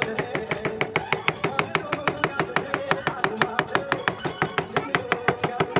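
A mallet striking a carving chisel into a wooden panel in quick, even blows, about six knocks a second.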